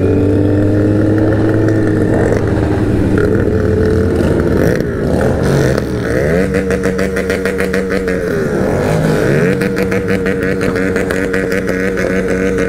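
Kawasaki Z900's inline-four engine running on the road, its pitch dipping and climbing back twice, about five and nine seconds in, then holding steady.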